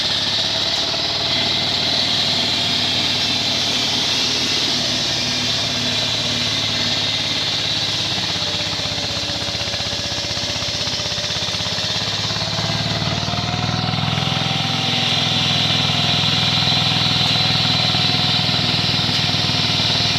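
Diesel engine of a concrete groove-cutting machine running steadily, with a steady high hiss over it. The engine sound grows a little louder about two-thirds of the way through.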